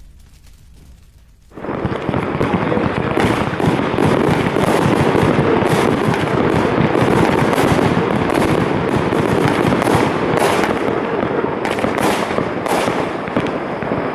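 Consumer fireworks battery going off: about a second and a half in it suddenly starts, then keeps up a loud, dense, continuous rush of rapid pops and crackles.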